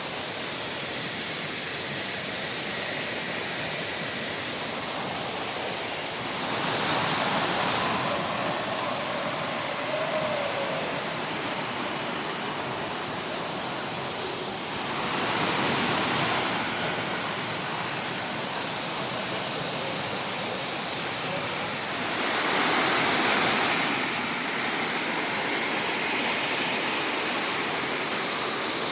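Waterfall pouring, a steady rush of water that swells louder three times for a second or two each.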